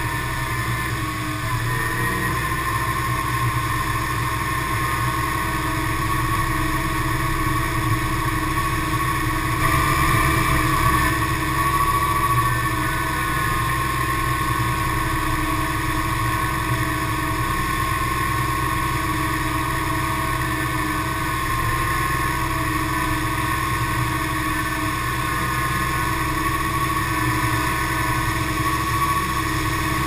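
Farm machinery engines running steadily, a tractor pulling a grain cart beside a combine, with a constant hum and high whining tones while the combine's auger unloads shelled corn on the go.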